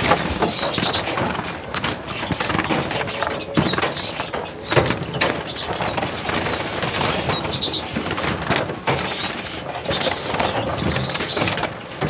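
Small finches, siskins and redpolls, calling with short high chirps and twitters while being caught and handled, over a busy bed of fluttering and light knocks.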